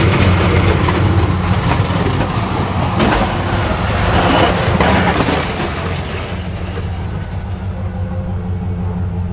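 Snow-plow truck's engine running steadily under load while pushing snow, a constant low drone with the rush of snow and plow noise over it, rougher for a couple of seconds in the middle and easing slightly toward the end.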